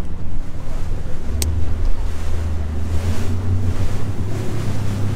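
A boat's engine running steadily under way, a low hum, with wind buffeting the microphone and water rushing past the hull. A single sharp click comes about a second and a half in.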